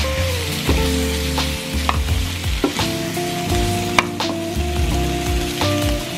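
Pork belly slices and sliced onion sizzling in a hot nonstick frying pan as they are stir-fried with a wooden spatula. There are a few short taps and scrapes of the spatula against the pan.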